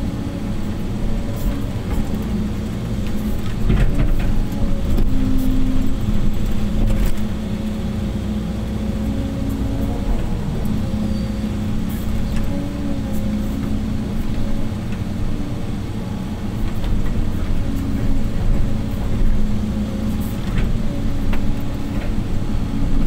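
Excavator diesel engine running with its hydraulics working, heard from inside the cab; the engine note steps up and down as the arm swings and dumps soil, louder about four to seven seconds in and again near the end. A few short knocks and clatters sound over it.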